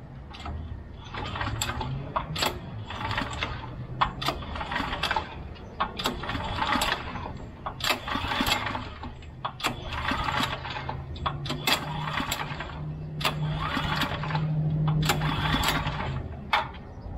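Small gas engine on a golf cart electric-to-gas conversion, running on its first start with no drive line hooked up, revved by hand in repeated short surges about every one and a half to two seconds, its steady note climbing a little in the later half.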